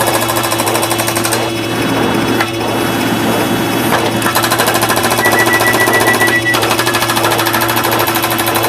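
Many layered sound effects fired in rapid succession, making a dense, clattering cacophony with steady low drones underneath. A high beeping tone sounds for about a second near the middle.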